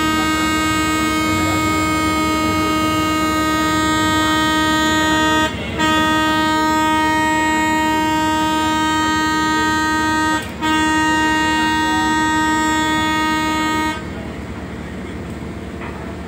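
Ship's horn of the KMP Pora Pora car ferry sounding a steady, loud pitched blast, broken twice by very short pauses into three long blasts, then stopping a little before the end.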